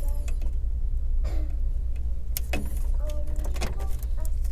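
A few light clicks and taps of cables and plastic connectors being handled inside a desktop PC case, over a steady low hum.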